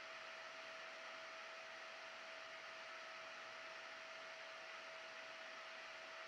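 Faint, steady whir of the cooling fan on the Peltier stack's heatsink, with a constant mid-pitched hum tone.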